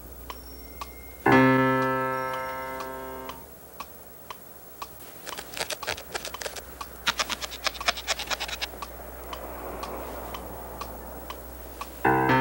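A single low piano note struck loudly about a second in, ringing and fading for about two seconds before it is cut short. A run of irregular light clicks and ticks follows.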